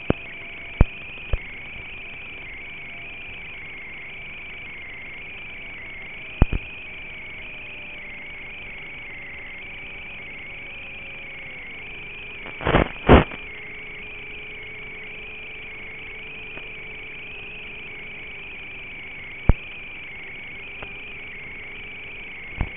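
Analog FPV video-link audio: a steady hiss with a faint motor tone underneath that drops in pitch as the throttle comes back, broken by scattered sharp pops, the loudest a close cluster about halfway through.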